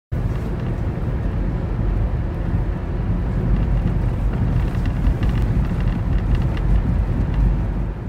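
A car driving, heard from inside the cabin: a steady low rumble of road and engine noise.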